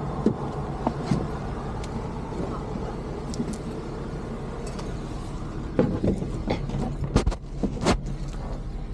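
Car interior while driving: a steady low engine and road rumble, with a handful of sharp knocks and clicks about six to eight seconds in.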